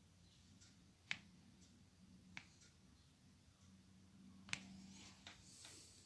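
Near silence with three light, sharp taps, about one, two and a half, and four and a half seconds in, and a few fainter ticks after the last.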